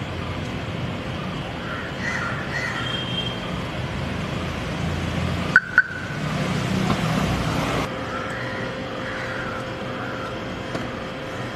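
Outdoor background with occasional crow caws. Just past the middle come two sharp clicks a fraction of a second apart: the car's door handle and latch being worked open.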